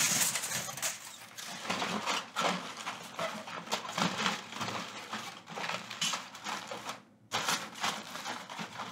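Aluminum foil crinkling and rustling as it is pressed and shaped around a plastic bottle, with a short pause about seven seconds in.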